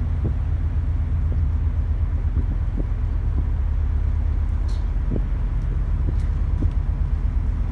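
A ferry's engines running under way, a steady low rumble with a faint steady hum.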